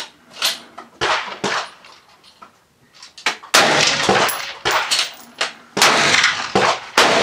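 Rifle shots: a run of sharp cracks, mostly fainter ones from neighbouring lanes, with three loud close shots about three and a half seconds in, about six seconds in and near the end, each trailing off in a long echo.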